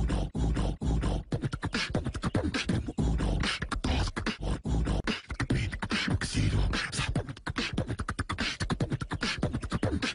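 Beatboxing: fast, dense rhythmic mouth percussion with heavy low kick-like hits, keeping up without a break.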